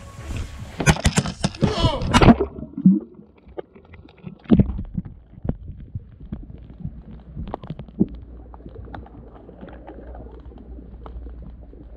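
A GoPro camera knocked into the water splashes in with a burst of sharp knocks and bubbling about a second in. From then on it records from underwater: muffled and dull, a low rumble with scattered faint clicks.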